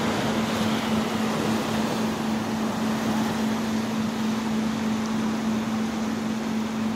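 Steady rush of rough surf breaking on a rocky shore, with a constant hum underneath.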